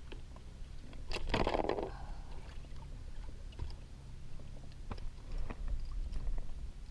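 Handling noise on a kayak: small knocks, clicks and scrapes as a mangrove snapper with a swallowed hook is held and the line is worked to unhook it. There is a brief louder rustling burst about a second in, over a steady low rumble.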